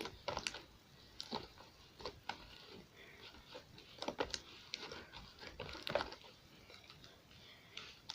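Glue slime with soft clay mixed in, being pressed and kneaded by hand: faint, irregular sticky clicks and squelches.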